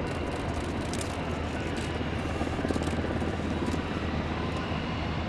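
Aircraft engines running with a steady low drone that holds a few constant low tones.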